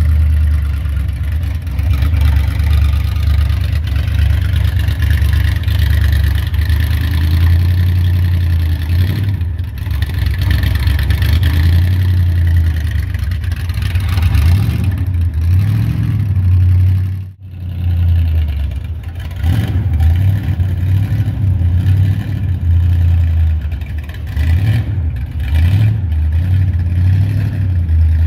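Custom 1942 Ford pickup's engine running with a steady low idle, revved up and back down a few times in the second half. The sound drops out briefly about two thirds of the way through.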